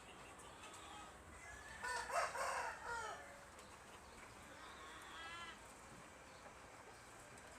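Chicken calling: one loud, drawn-out crow-like call about two seconds in, then a fainter run of quick clucks around five seconds.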